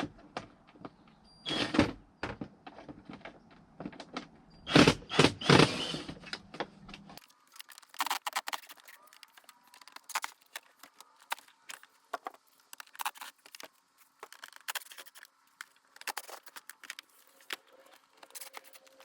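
Light clicks and knocks of heater-box parts and hand tools being handled during disassembly, with louder clattering about two seconds in and again around five to six seconds in.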